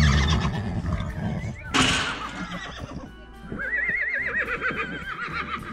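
A horse whinnying: a loud, wavering, quivering call from a little past the middle to near the end, after a shorter sudden outburst about two seconds in, over steady background music.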